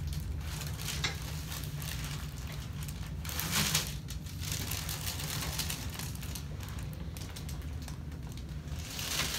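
Soft rustling of hands and clothing against the patient while a chiropractor stretches her neck, with a louder brief rustle about three and a half seconds in and again near the end, over a steady low hum.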